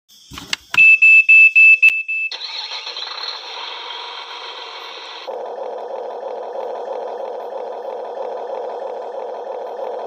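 A quick run of about five loud electronic beeps from RC construction toys, then a mixed mechanical noise. From about five seconds in comes the steady, rhythmic whine of a small electric motor and gearbox as a Huina RC bulldozer drives on its tracks.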